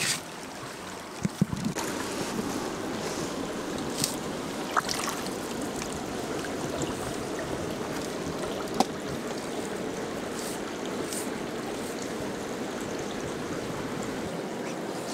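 Shallow river water flowing steadily, with a few sharp clicks and a couple of low knocks early on.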